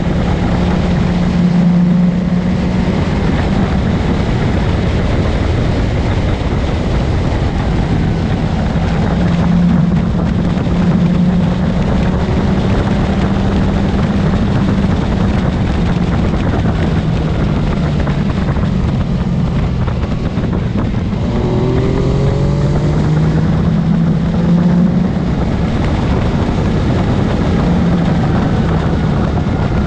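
Motorcycle engine running at steady road speed with wind rushing over the bike; the engine note briefly drops and then climbs again about two-thirds of the way through.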